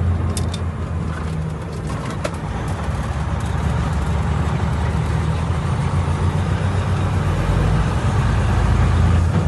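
A vehicle's engine and road noise while driving: a steady low hum that grows louder over the last few seconds, with a couple of light clicks in the first few seconds.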